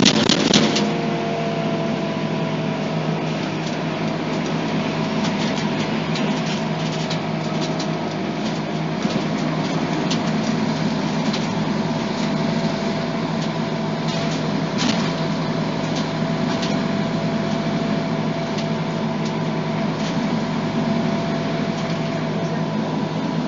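Scania DC9 diesel engine of a Scania OmniCity articulated bus, heard from on board and running steadily at an unchanging pitch, with a few short rattles and clicks from the body, most of them at the start.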